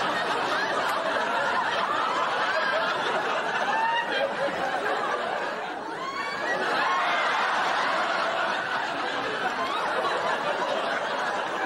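Studio audience laughing steadily, many people at once, easing off briefly about six seconds in and then picking up again.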